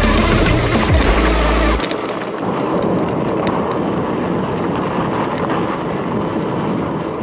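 Wind rushing over the camera microphone and e-bike tyres rolling on a dirt trail, with scattered small clicks of grit and stones. A loud low rumble fills the first two seconds and cuts off suddenly.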